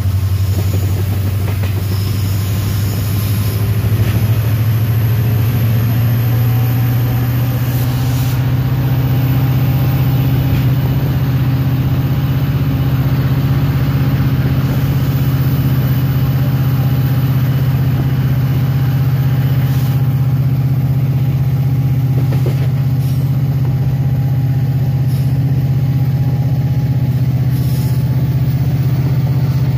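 EMD two-stroke diesel locomotive engine heard from inside the cab, a loud steady drone. Its pitch rises over the first several seconds as the engine revs up, then it holds steady, with a few faint clicks later on.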